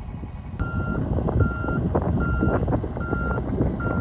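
John Deere compact excavator moving, its travel alarm giving five steady beeps about one every 0.8 seconds over the running diesel engine, with a string of knocks and clanks.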